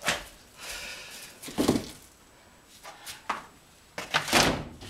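Knocks, bumps and scrapes of items being shoved and rearranged while packing a crammed truck: one at the start, another about a second and a half in, a lighter one around three seconds, and a louder cluster near the end.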